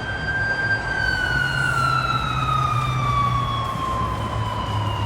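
Siren of a Japanese police patrol motorcycle sounding one long wail that holds its pitch for about a second, then glides slowly and steadily down, over a low engine hum.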